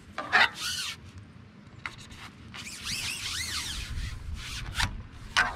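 Hands scooping and working damp groundbait in a bucket, a dry rubbing and scraping sound: a short swish just after the start, then a longer stretch of rubbing from about two and a half seconds in.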